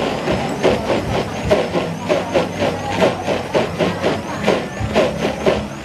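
Commercial countertop blender running at high speed, crushing ice into a milkshake, with a steady motor whine and a rhythmic chopping knock about four times a second as the ice hits the blade.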